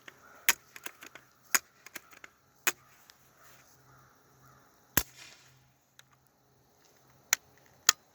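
Pump-action BB gun being worked and fired: a series of sharp cracks and clicks at irregular spacing, the loudest about five seconds in.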